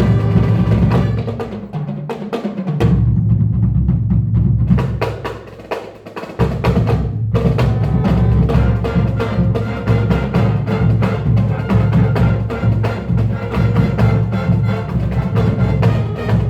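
Marching band playing, with drums and percussion prominent. The music thins out about two seconds in, nearly drops away around six seconds, then the full band comes back in with sharp percussion hits.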